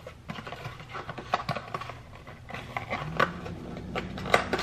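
A cardboard coffee-capsule box being opened by hand, its paper insert and a capsule sleeve slid out: a series of short scratchy rustles and small taps.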